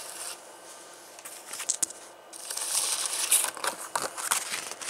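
Padded mailer and the paper inside it rustling and crinkling as they are handled, with a few light clicks. Fairly quiet for the first two seconds, then busier in the second half.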